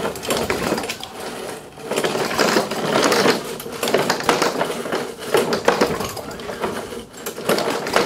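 Pull-cord recoil starter of a 4 hp Tecumseh mower engine being yanked several times, the engine whirring and rattling over without firing. It is a sign of no fuel reaching the plug, which the repairer suspects is a primer or carburettor fault.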